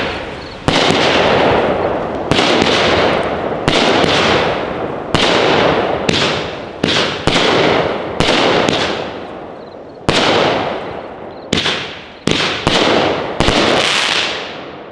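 A 10-shot, 200-gram consumer firework cake (Winda Cherry Bomber) firing: a string of sharp reports about a second apart. Each is followed by a long crackling decay from the red dahlia, strobe and crackle shells, and it fades out near the end as the cake finishes.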